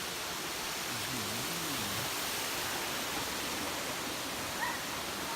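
Steady rushing of water cascading down a tiered waterfall. A faint voice wavers briefly about a second in, and a short higher sound comes near the end.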